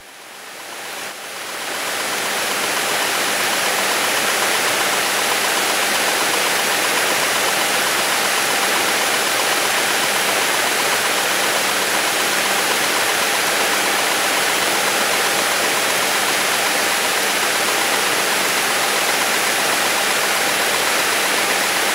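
Steady cabin drone of a Beechcraft Bonanza's piston engine and propeller while taxiing, picked up through the cockpit intercom audio as an even hiss. It swells over the first couple of seconds and then holds level.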